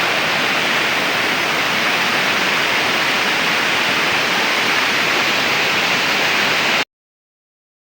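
Waterfall rushing in a steady, loud wash of falling water, cutting off suddenly near the end.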